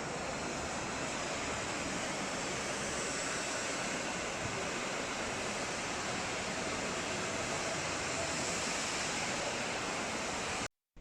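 A steady rushing noise that cuts off suddenly near the end.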